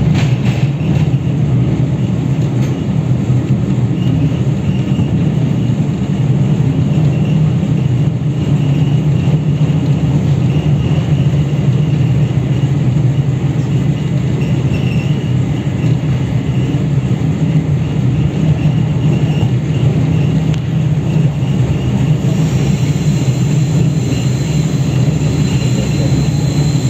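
A diesel-hauled passenger train heard from inside a coach as it rolls along the track: a loud, steady running noise of wheels, rails and the D445 diesel locomotive ahead. Near the end a thin, high-pitched whine joins it.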